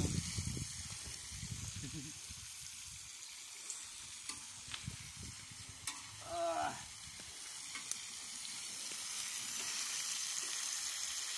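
Vegetables and meat sizzling steadily in a large wok-style pan over a wood fire, with a utensil scraping and stirring through them during the first couple of seconds. A brief voice-like call rises and falls about six and a half seconds in.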